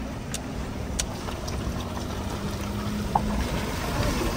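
Off-road vehicle running, a steady low rumble with a couple of light clicks in the first second and a sharper knock about three seconds in.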